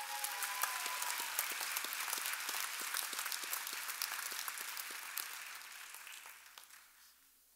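Audience applauding: many hands clapping together, setting in at once and dying away over the last second or so.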